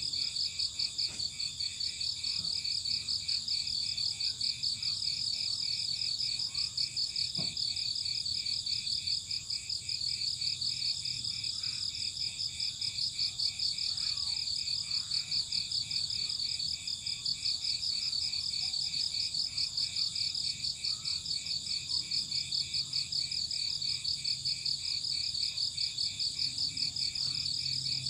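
Crickets chirping in a steady chorus, several high, pulsing trills overlapping without a break.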